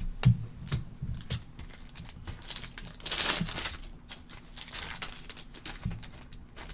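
Trading card pack wrapper crinkling and tearing open, with light taps and clicks of cards being handled; the loudest tearing comes about three seconds in.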